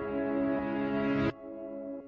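Background music of slow, ambient held chords. They drop suddenly about a second in, leaving a quieter ringing tail that fades away.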